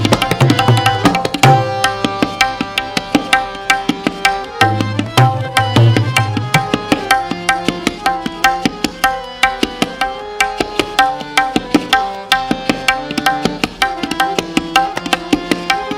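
Tabla solo: a fast, dense run of strokes on the dayan, with deep resonant bass strokes on the bayan coming in bursts. Held melodic notes of the lehra accompaniment sound behind the drumming.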